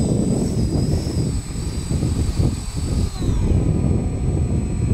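Twin 50 mm electric ducted fans of an RC model airliner whining at a high pitch; the whine wavers and then falls away in pitch about three seconds in. Heavy wind buffets the microphone underneath.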